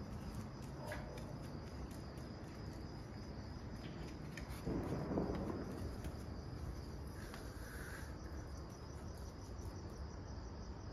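Insects chirping steadily in a high-pitched, cricket-like trill. A brief louder rustling burst comes about five seconds in.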